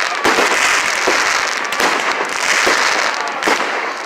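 Fireworks display: about five loud bangs roughly a second apart over continuous crackling.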